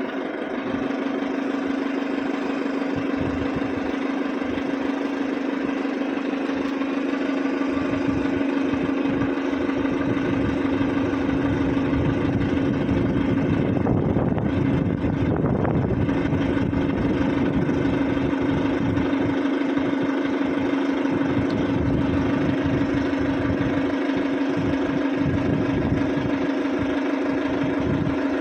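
A motor running steadily with a constant, even hum. Some extra low rumble comes in around the middle.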